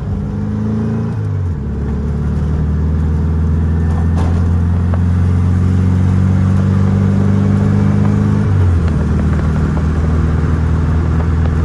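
1972 VW Super Beetle's air-cooled flat-four engine running steadily while the car is driven, its note stepping down twice, about a second and a half in and again near nine seconds.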